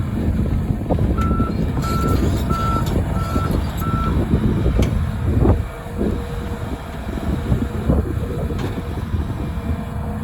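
Diesel engine of a Volvo EC300E hydraulic excavator running under load, with scattered knocks. About a second in, a reversing alarm sounds five short beeps at one steady pitch, roughly two a second.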